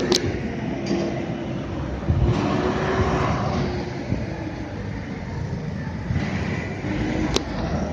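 Outdoor urban background noise: a steady low rumble with a faint hum running through it, broken by two sharp clicks, one at the very start and one near the end.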